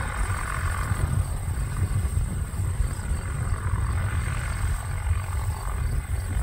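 Wind buffeting the microphone with an uneven low rumble, over the distant drone of the Tecnam P2006T's twin Rotax 912S3 four-stroke engines at taxi power.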